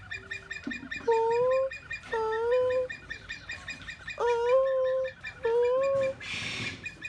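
Siamang giving four rising hoots, each under a second long, with a gap before the third. A brief hiss near the end.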